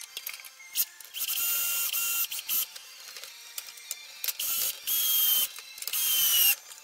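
A small power tool's motor, such as a cordless ratchet, runs in about five short bursts with a high whine, the longest lasting about a second.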